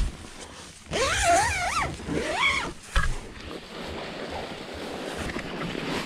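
A woman's voice making two drawn-out, wavering wordless sounds, like moans, the first about a second in and a shorter one soon after, followed by a single knock.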